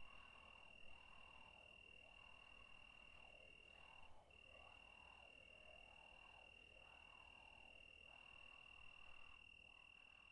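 Faint, steady cricket trill: one high continuous tone with a brief break about four seconds in, over a soft hiss that swells and fades about once a second.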